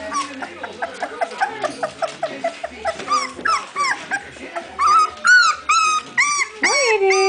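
Border collie puppies, about three weeks old, whining and yipping: a quick run of short yips in the first few seconds, then louder whines that rise and fall, with one long drawn-out whine near the end.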